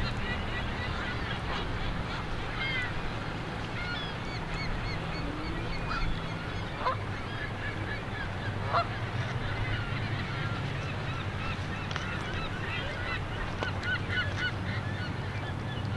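A flock of Canada geese calling on the water: many short calls throughout, with a few louder rising honks in the middle, over a steady low hum.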